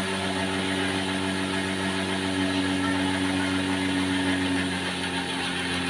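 Homemade cotton candy machine running while floss is spun onto a stick: a steady hum from the spinning head over an even hiss, holding level throughout.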